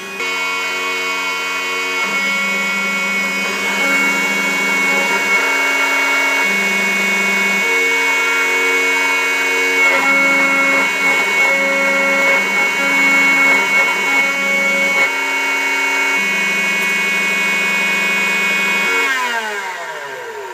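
Bravo Prodegy 3030 CNC router carving pine with a V-bit: a steady high spindle whine over stepper-motor tones that jump to a new pitch every second or two as the axes change direction and speed. Near the end the machine is stopped and all its tones slide down in pitch and fade.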